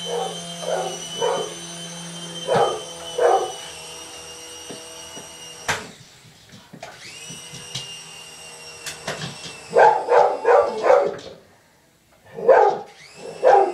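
A dog barking in short runs, loudest about ten seconds in, at a small remote-control toy helicopter whose electric motor gives a high steady whine. The whine cuts out twice and spins back up each time, rising in pitch.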